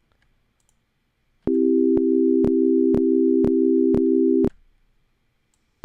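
A low synthesizer chord played back from a Logic Pro MIDI track, struck again twice a second for about three seconds, with a sharp click at each new note. Near the end a few short single notes step downward.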